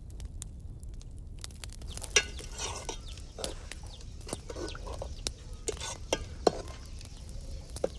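Steel ladle stirring chopped vegetables in a metal cooking pot, scraping and knocking against the pot, with sharp knocks at about 2 s and 6.5 s. Chickens cluck in the background.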